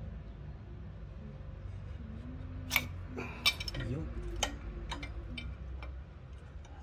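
Several sharp metallic clinks of hand tools and engine parts knocking together during a motorcycle top-end teardown, the loudest two about three seconds in, over a steady low hum.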